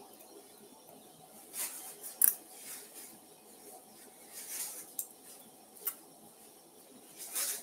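Steel surgical instruments, a needle driver and thumb forceps, clicking and snipping while a skin incision is sutured closed: a few short sharp clicks, the loudest about two seconds in, with softer rustles between them.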